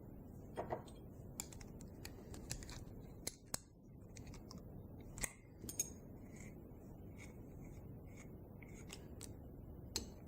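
Faint, irregular small metallic clicks and scrapes of hand tools on the parts of a Cox .049 model diesel engine being taken apart.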